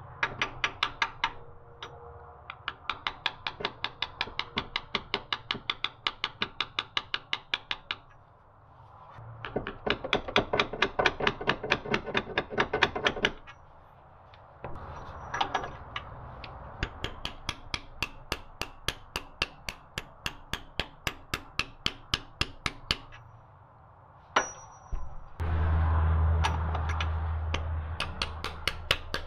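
Hammer tapping a socket to drive a new crankshaft front main oil seal into the engine's timing cover: quick light metal-on-metal taps, about four a second, in runs broken by short pauses. One harder knock comes near the end, followed by a low rumble under the last taps.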